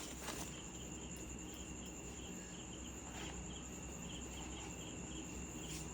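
Faint insect chirping in the background: a steady high trill with small, evenly repeating pulses.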